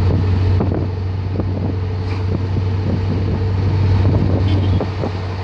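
Car engine drone and road noise heard from inside the cabin while driving, a steady low hum with many light knocks and rattles scattered through it.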